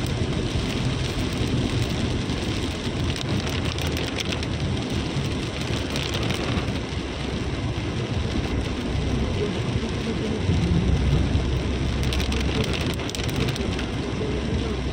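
Heavy rain drumming on a moving Mahindra Scorpio's roof and windscreen, heard inside the cabin, over a steady low rumble of engine and tyres on the wet road.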